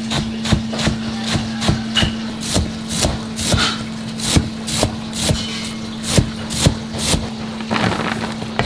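Cleaver chopping sweet potato leaves and stems on a round chopping block, in steady strokes about two and a half a second. Near the end the chopped greens are scraped off the board and fall into a bin.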